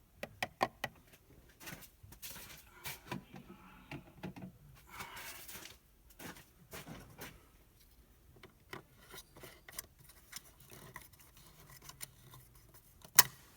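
Scattered small clicks, taps and rustling of parts being handled, with one sharp, loud click near the end.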